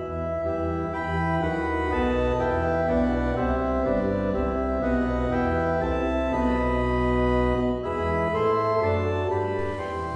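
Organ music playing slow, held chords over low sustained bass notes that change every second or two.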